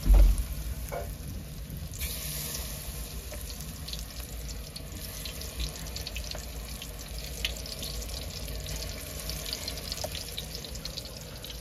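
Food deep-frying in a pan of hot oil: a steady sizzle with scattered crackles, after a low thump right at the start.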